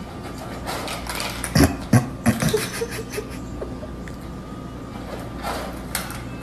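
A cat eating dry food from a bowl: a quick run of loud clicks and knocks about one and a half to two and a half seconds in, then quieter eating noises.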